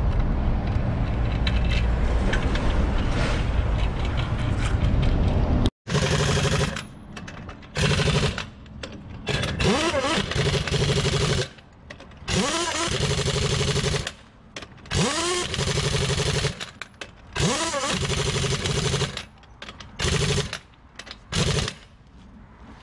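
Pneumatic impact wrench tightening the lug nuts on a truck wheel, in a series of short bursts with quiet gaps between them, its air motor whining up or down in pitch at several of them. Before that, a steady low rumble for the first few seconds.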